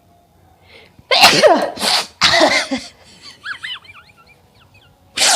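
A woman sneezing loudly, set off by tickling the inside of her nose with a rolled paper: two loud voiced bursts about a second apart, then a few faint high squeaks, and another loud burst near the end.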